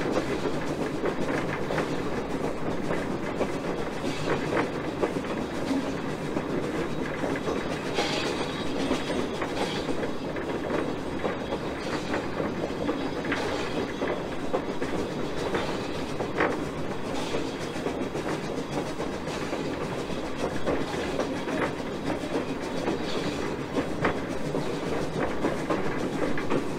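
A 1920 steam switcher locomotive rolling along the track, heard from its front pilot close to the rails: a steady rumble of wheels on rail, with occasional sharp clicks as the wheels cross rail joints.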